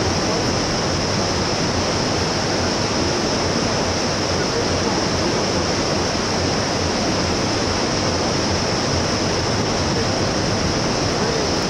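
Steady rushing noise of river water over rapids, unbroken throughout, with a bright high hiss over it.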